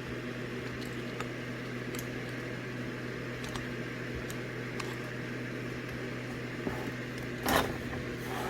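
Steady low background hum with a few faint light clicks, and one short, louder handling noise about seven and a half seconds in, as of a metal engine part being picked up or set down.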